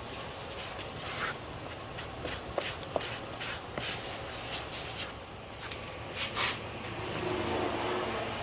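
A plastic spreader scraping Evercoat Z-Grip body filler on a mixing pad: a series of short scraping strokes, with two sharp clicks between two and three seconds in. A low hum rises near the end.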